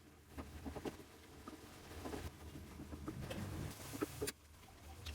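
Food cooking in a pan: a steady hiss with small crackles and ticks that cuts off suddenly about four seconds in.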